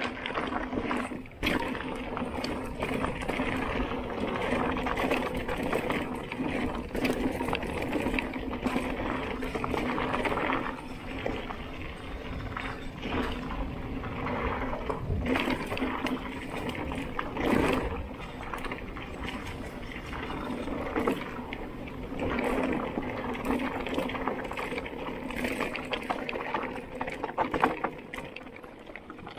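Mountain bike rolling down a rough dirt and gravel track: steady tyre noise over the stones, with frequent knocks and rattles from the bike as it hits bumps.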